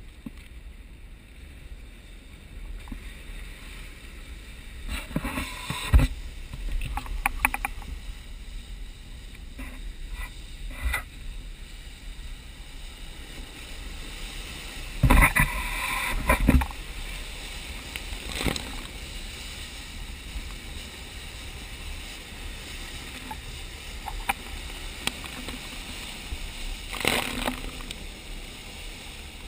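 Steady rushing, rumbling outdoor noise at the edge of an active lava flow, with a few louder surges: about five to six seconds in, around fifteen to sixteen seconds in, and near the end.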